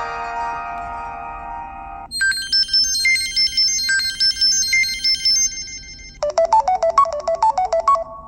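Preloaded Samsung Galaxy Light ringtones played in turn. A held chord-like tone cuts off about two seconds in, a bright high chiming melody follows, and about six seconds in a fast tune of short quick notes starts.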